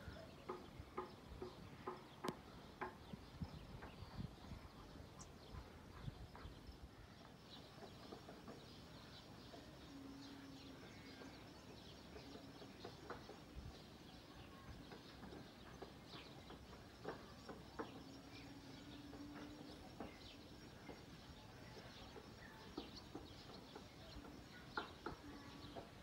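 Faint outdoor ambience in a farm field, with scattered soft clicks and ticks and two brief faint low hums, about ten and eighteen seconds in.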